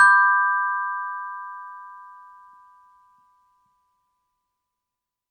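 Electronic end-of-countdown chime: three quick notes rising in pitch, the last struck right at the start, ringing together and fading away over about three seconds.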